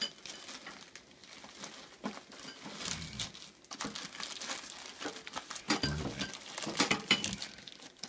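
Plastic bags crinkling and rustling as a hand rummages through them, with scattered small clicks and knocks.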